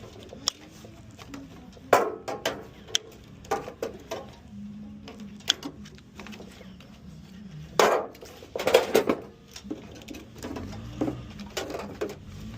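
Hand snips cutting parts out of a tankless water heater, with metal pieces clicking and clanking as they are handled: irregular sharp snaps, with a busier run of clanks about eight seconds in.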